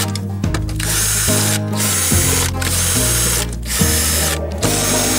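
Cordless drill/driver backing out bolts on top of a diesel engine, running in about five short bursts with brief pauses between, over background music with a bass line.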